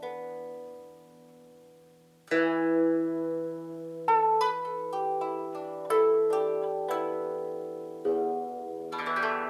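Guzheng, the 21-string Chinese zither, plucked in single notes and chords that ring on and slowly fade. A chord dies away over the first two seconds, then a slow phrase of strong plucks follows, turning to a quick run of notes near the end.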